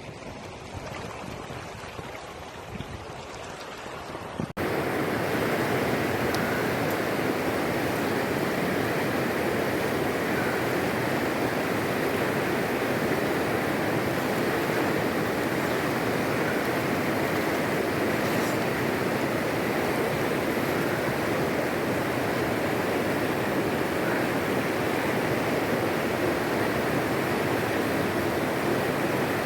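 River water rushing steadily. About four and a half seconds in, a quieter, duller wash cuts abruptly to a louder, fuller rush that stays even.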